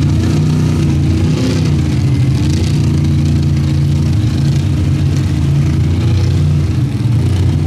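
Dirt drag race car engines running loudly at a steady speed, idling while staged at the start line, with a slight rise and fall in pitch about a second and a half in.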